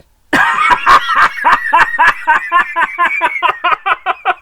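A man's voice doing an exaggerated imitation of a laugh: a long run of quick, high-pitched staccato pulses, about five or six a second, loudest near the start and fading toward the end.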